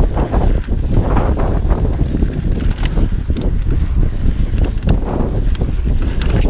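Heavy wind noise on the camera microphone of a mountain bike descending a dirt trail, with tyre rumble and frequent short rattles and knocks as the bike runs over bumps.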